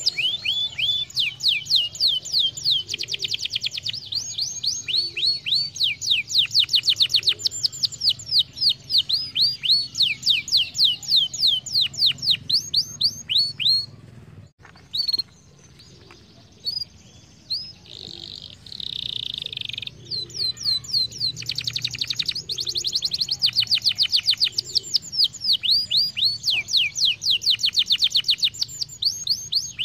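Domestic canary singing long, fast trills of repeated high, sliding notes. The song thins to a few scattered notes about halfway through, then the full trills start again.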